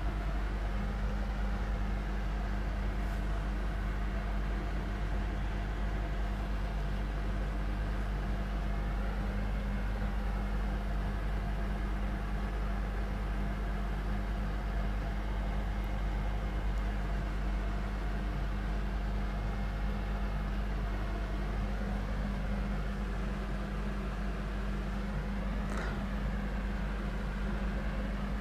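Steady low hum with an even hiss over it, unchanging: electrical or room background noise.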